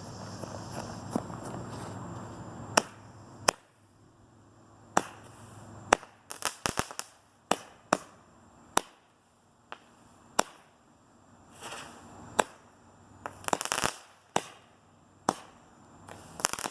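A 16-shot consumer firework cake firing: a steady hiss for the first few seconds, then a string of sharp bangs at uneven spacing, some in quick clusters, as it launches its flaming balls and their reports go off.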